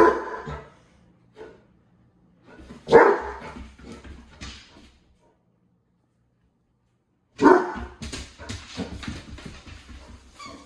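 Basset hound barking during excited play: three loud barks, at the start, about three seconds in and about seven and a half seconds in, with quieter barks and scuffling between them.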